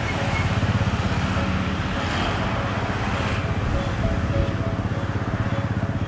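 A motor vehicle engine running close by, a steady low rumble with rapid pulsing, under background music.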